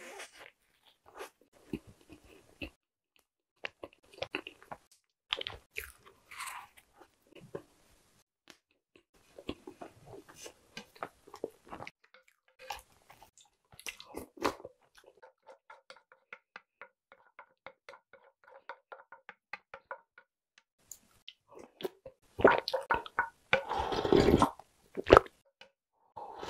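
Close-miked chewing and wet mouth sounds of eating soft chocolate bread and spoonfuls of soaked chocolate snacks, with quick small clicks in the middle. Near the end come the loudest sounds: slurping and gulping as the last of the soup is drunk straight from the bowl.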